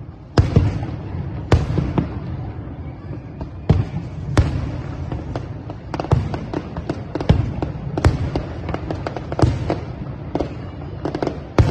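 Aerial fireworks bursting: a dozen or so sharp bangs at irregular intervals, each trailing a low rumbling echo, the loudest about half a second in and the bangs coming faster near the end.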